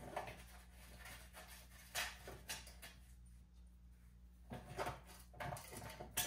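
Workshop handling noises: scattered light knocks, clicks and rustles of tools and parts being handled during disassembly, with a busier cluster near the end, over a steady low hum.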